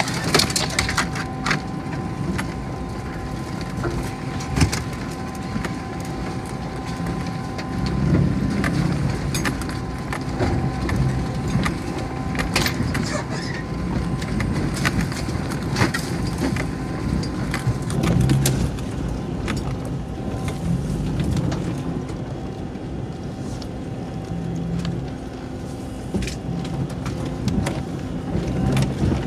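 Isuzu VehiCross crawling along a rocky creek bed, heard from inside the cabin: a steady low engine and drivetrain rumble with frequent sharp knocks, cracks and scrapes as brush and stones strike the body.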